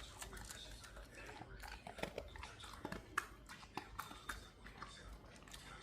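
Small dog chewing, with irregular crunchy clicks and snaps of its teeth as it eats its heartworm medicine.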